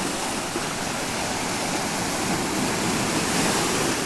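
Sea surf breaking and washing over sand and rocks at the water's edge: a steady rush of water that grows a little louder near the end.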